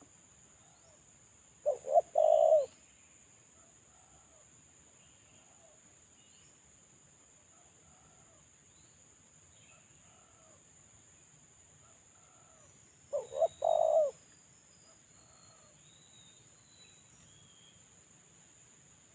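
Spotted dove cooing: two three-note phrases, two quick notes and a longer final one, about eleven seconds apart. Faint small-bird chirps sound in between.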